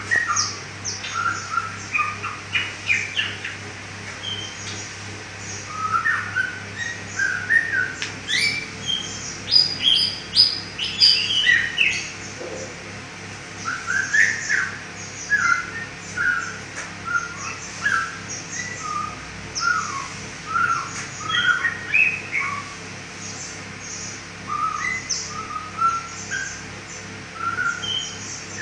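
A pet songbird singing a busy run of short chirps and quick whistled notes in bursts with short pauses, over a faint steady low hum.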